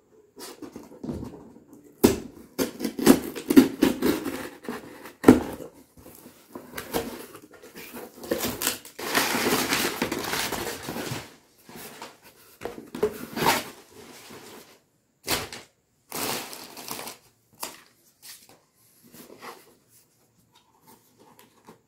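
Cardboard shipping box being opened by hand: a knife scraping through the packing tape, flaps pulled back, and brown packing paper rustled and crumpled. It comes in irregular bursts of scraping, crinkling and light knocks, with a longer stretch of paper rustling about nine seconds in.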